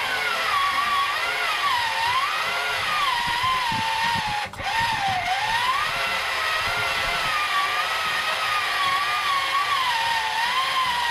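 Small electric motor of a Color Kids toy pottery wheel whining as the turntable spins under the clay, its pitch rising and falling as the foot pedal and the pressure of the hands change its speed. It cuts out for a moment about four and a half seconds in, then picks up again.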